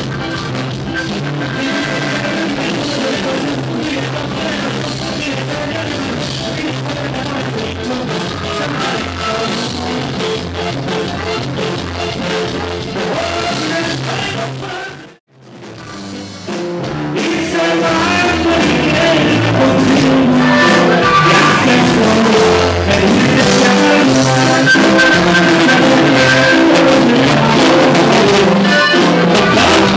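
Regional Mexican band music from a live set, with a man singing over tuba, accordion and drums. It dips out for a moment about fifteen seconds in, then comes back louder.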